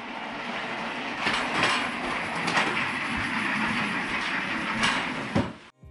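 Metal clothes rail on casters being wheeled across the floor: a steady rolling rumble with rattles and a few sharp clicks, stopping suddenly near the end.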